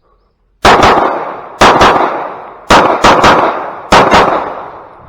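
Pistol shots fired in quick pairs: four strings about a second apart, one string of three, each shot followed by a short echoing tail.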